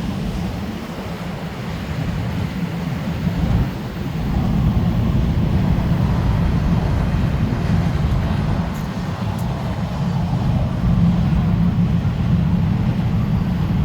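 Strong storm wind buffeting the microphone: a steady low rumble that swells a little stronger about four seconds in.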